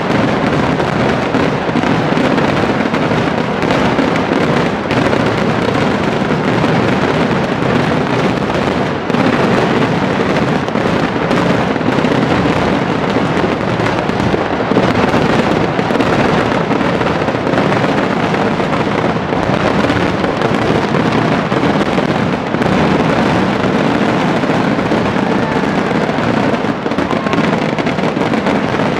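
Kerala temple-festival fireworks (vedikettu) going off in a dense, unbroken barrage, the bangs and crackles following so closely that they run together into one continuous din.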